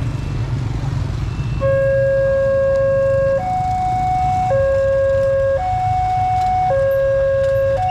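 Railway level-crossing warning alarm sounding a two-tone signal, alternating between a lower and a higher steady tone about once a second, starting about two seconds in. It warns that the crossing is closing for an approaching train. The rumble of passing motorcycle engines runs underneath.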